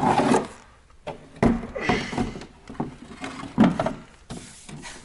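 Irregular knocks and rubbing as a brand-new plastic car air duct is handled and turned over.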